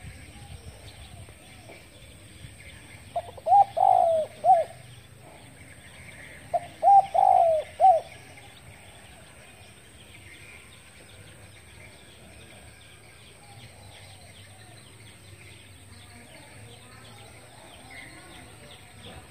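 Spotted dove cooing: two calls of several low notes each, about three seconds apart, with faint high chirping in the background.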